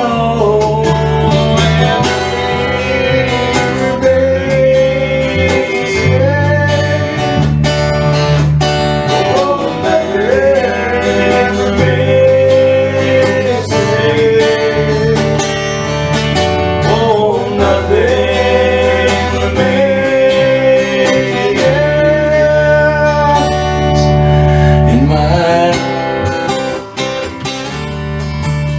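Instrumental break in a country-style song: strummed acoustic guitar and a bass line under a lead melody whose notes bend and slide in pitch.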